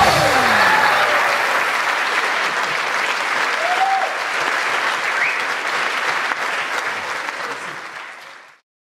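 Theatre audience applauding, a steady clapping that tapers off and fades out just before the end.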